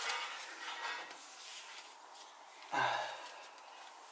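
Soft rustling of handling and clothing in a small room, then a brief voiced exhale, a short grunt from the man leaning over the engine, about three seconds in.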